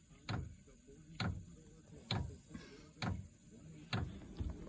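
Diesel heater's fuel dosing pump ticking regularly, about once a second, as it pumps fuel on the heater's first run to prime the line.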